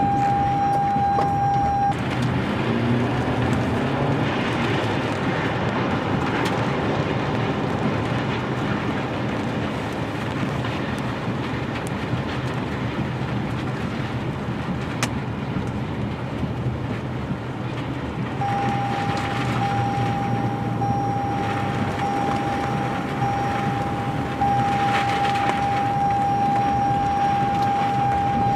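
Steady loud rushing roar of tornado wind. A single steady high-pitched tone sounds for the first two seconds and again from about two-thirds of the way in, and a rising whine is heard about two to four seconds in.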